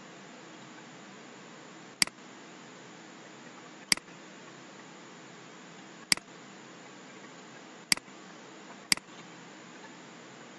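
Five sharp computer mouse clicks at uneven intervals, over a faint steady hiss.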